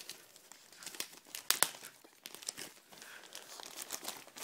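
Plastic packaging crinkling as a trading-card starter pack is handled: irregular crinkles and crackles, the sharpest about a second and a half in.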